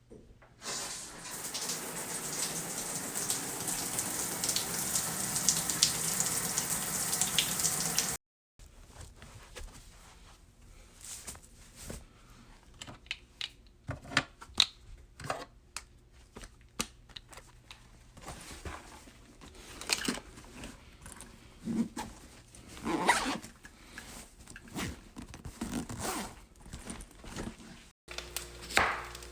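Water running steadily for about eight seconds, then cut off abruptly. This is followed by a string of scattered small clicks, knocks and rustles of objects being handled.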